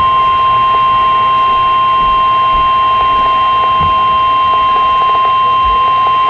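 NOAA Weather Radio 1050 Hz warning alarm tone: one steady, loud, high beep held unbroken over a faint radio hiss. It announces that a new weather warning is about to be read.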